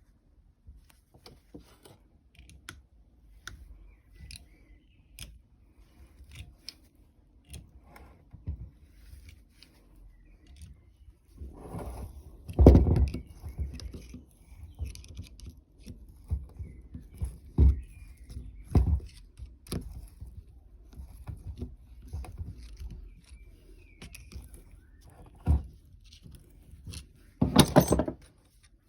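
Hand tools working a screw extractor into a broken bolt: scattered metal clicks, clinks and scrapes, with a few louder knocks, the loudest about 13 seconds in and a cluster near the end.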